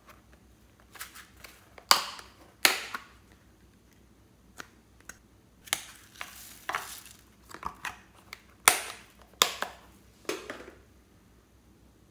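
Sharp plastic snaps and cracks from hands handling toppings over a plastic bowl, with a short rustling patter about six seconds in as small foam beads pour from a plastic container into the bowl.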